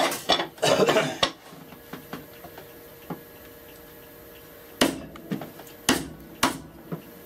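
Chisel work on a wooden plane body, paring out a screw slot: a flurry of knocks and clatter in the first second, then, after a quiet spell, three single sharp strikes near the end.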